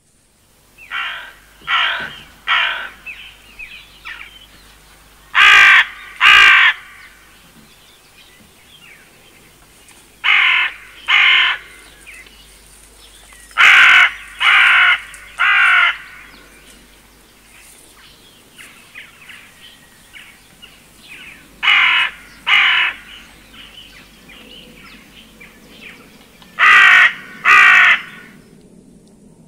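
A crow cawing: harsh calls in groups of two or three, about a second apart, repeated every few seconds, with fainter calls in between.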